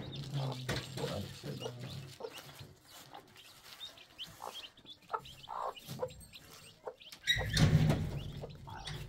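A domestic hen clucking in short separate calls while being handled, with a louder rustling scuffle about seven seconds in.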